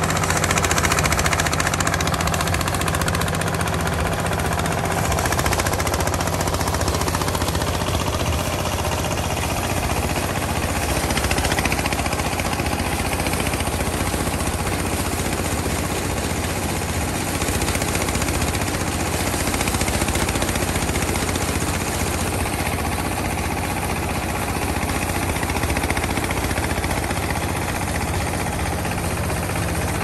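Small single-cylinder diesel engine running steadily, driving a portable rice thresher by a flat belt, with the threshing drum spinning as rice stalks are fed into it.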